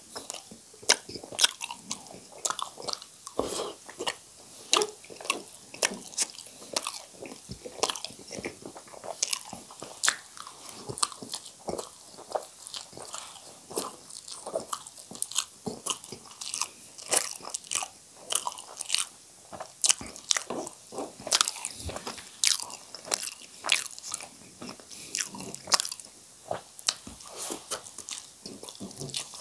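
A person eating noodles and boiled potatoes close to the microphone: chewing and drawing in noodles, with many sharp, irregular wet mouth clicks.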